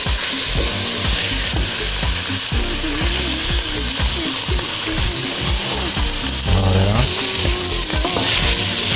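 Fish bones and olive oil sizzling in a hot stainless steel stockpot: a steady frying hiss. A wooden spoon stirs and scrapes them against the pot with regular soft knocks.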